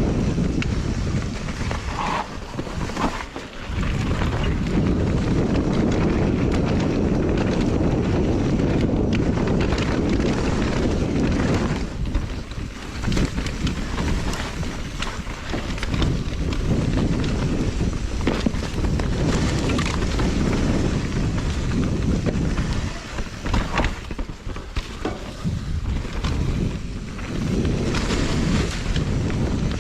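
Wind rushing hard over a camera microphone during a fast mountain bike ride, mixed with tyre noise and rattling knocks from the bike on rough dirt trail. The rush eases briefly a few times.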